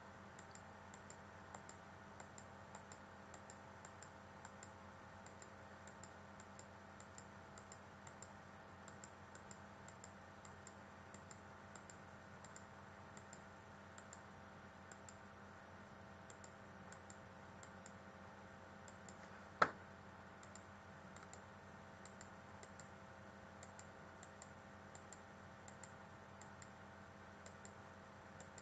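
Faint computer mouse clicks, about one or two a second, over a steady low electrical hum, with one louder sharp click about twenty seconds in.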